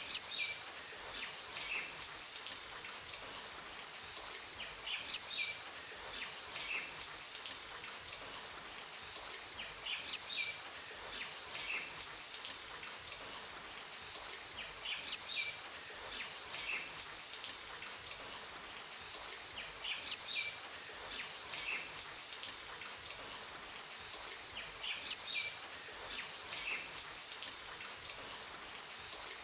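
Nature ambience track of steady rain hiss with short clusters of bird chirps that come back about every five seconds in an even loop.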